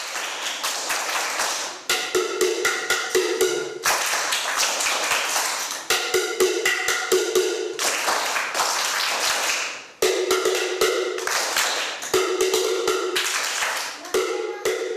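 A class playing a batucada rhythm on percussion: dense, rapid tapping and striking in a steady rhythm. The phrases switch about every two seconds between a dry, bright tapping and one with a lower, ringing tone.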